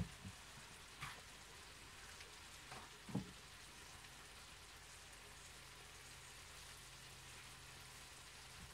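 A pan of chicken chop suey (noodles, chicken and bok choy) faintly sizzling on a gas hob, with a few soft crackles and pops in the first few seconds.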